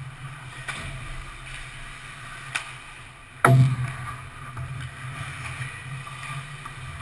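Ice hockey rink sounds over a steady low hum: scattered sharp clicks of sticks and puck, and about three and a half seconds in one loud sharp impact with a short ringing tail, a puck striking the metal goalpost.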